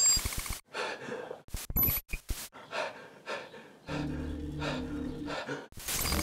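Electronic glitch sound effects: a burst of hiss, then a rapid stuttering run of digital clicks. A steady low hum follows, and a second burst of hiss comes near the end.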